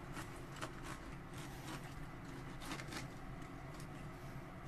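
Kitchen knife cutting through a Pacific saury on a wooden cutting board: faint scattered scrapes and light taps over a steady low hum.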